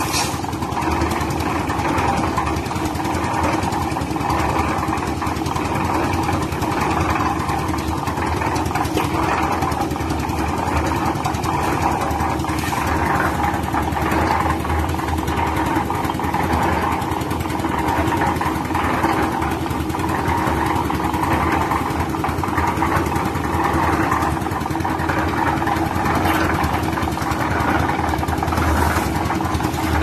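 Engine-driven drum concrete mixer running steadily as gravel and cement are tipped into the turning drum, with a few short knocks.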